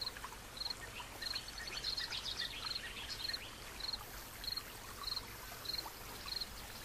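Nature ambience: an insect, likely a cricket, chirping in short even pulses a little under twice a second, with faint bird twitters over a steady soft hiss.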